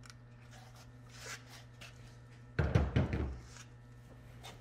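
A corded heat gun set down with a few dull clunks about two and a half seconds in, over a steady low hum.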